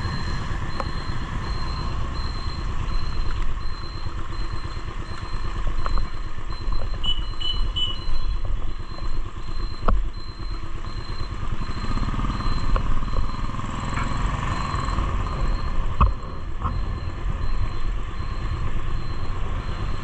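Motorcycle riding on a wet road, heard from the bike: steady wind rumble and road noise over the running engine, with a few sharp knocks as the wheels hit bumps and potholes.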